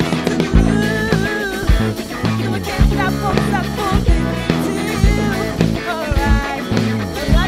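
Live band playing an upbeat pop-rock worship song: drum kit keeping a steady beat under bass guitar and electric guitars, with a wavering sung melody line over the top.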